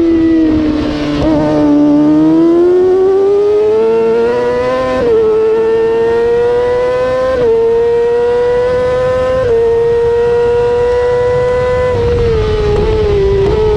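600cc supersport race motorcycle engine at high revs, heard from beside its exhaust silencer. The revs dip over the first two seconds, climb again, change pitch in steps about five, seven and a half and nine and a half seconds in, and fall away near the end.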